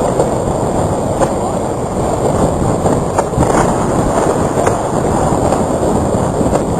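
Hurricane wind rushing steadily and loudly, with a handful of sharp knocks scattered through it.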